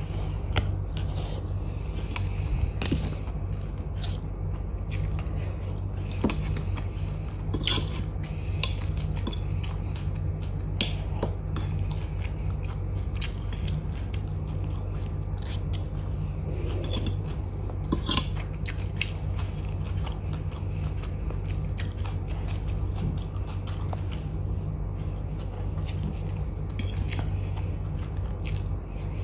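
Close-up chewing of Maggi instant noodles, with a fork clicking and scraping on a metal plate as more noodles are picked up, over a steady low hum. A few of the fork clicks are sharper than the rest.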